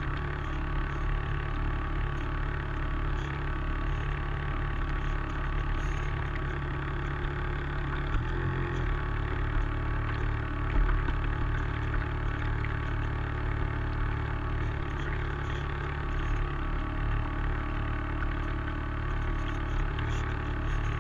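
An RC model tug's drive motor humming steadily on board as the boat cruises, heard through a camera mounted on its deck, with a brief change in tone about eight seconds in.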